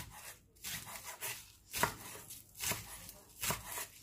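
Chef's knife chopping green onions on a wooden cutting board: a run of sharp, unevenly spaced knocks as the blade cuts through the stalks and strikes the board.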